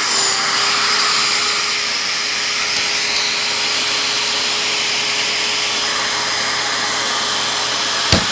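Electric fan of a carpet-seam cooling weight running steadily: a rush of air with a thin steady hum under it. One sharp click near the end.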